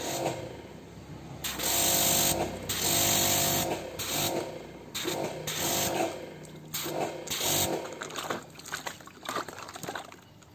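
Water spraying in repeated bursts and splashing in a plastic tub while a wet puppy is bathed, with a faint even hum under the spray. The two longest bursts come about two seconds in, followed by a string of shorter ones.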